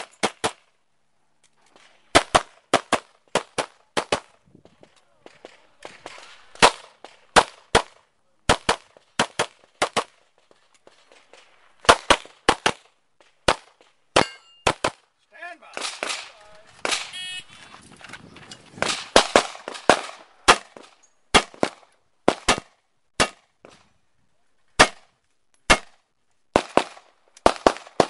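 Pistol fired in rapid pairs and strings of shots, with short pauses between strings.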